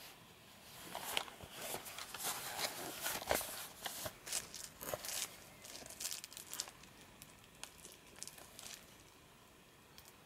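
A cardboard toy box being handled and turned in the hands: irregular rustling, crinkling and light scraping clicks that begin about a second in and die away about a second before the end.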